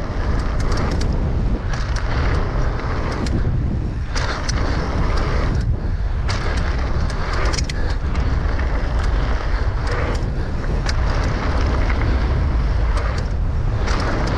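A mountain bike ridden fast down a dry dirt trail: steady wind rumble on the microphone and tyres rolling over hardpacked dirt, with frequent sharp clicks and rattles from the bike.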